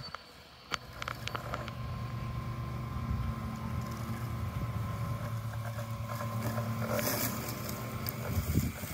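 EcoFlow Blade robotic lawn mower's electric motors running as it moves off, a steady hum with a faint whine that sets in about a second in.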